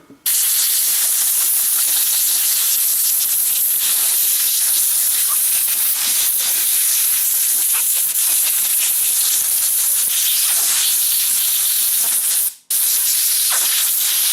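Compressed air blowing off a pocketknife: a steady, hard hiss that stops briefly about twelve and a half seconds in, then starts again.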